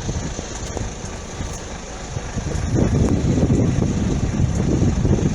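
A truck's engine running near the closed level crossing, a low rumble that grows louder about three seconds in.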